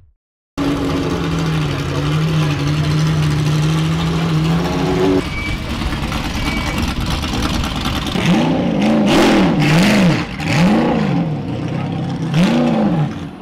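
Performance car engine running at steady revs, then revved up and down sharply four times.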